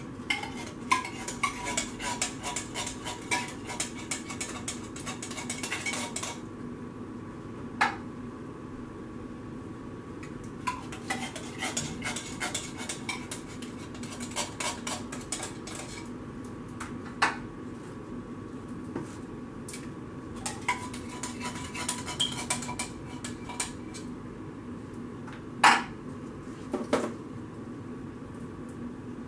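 A spoon scraping and clinking inside tin cans as thick condensed cream of chicken soup is spooned out into a plastic mixing bowl: clusters of quick taps and scrapes with short pauses between, and a few single louder knocks.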